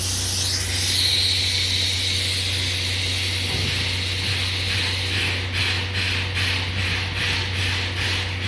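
Steam hissing from the C11 325 steam locomotive, starting suddenly and loud. From about halfway it turns into a rhythmic pulsing a little over twice a second, over a steady low hum.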